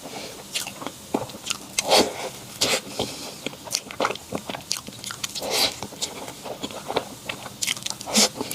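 Someone biting and chewing crunchy food close to the microphone: an irregular run of sharp crunches and clicks, several a second, with a few louder bites.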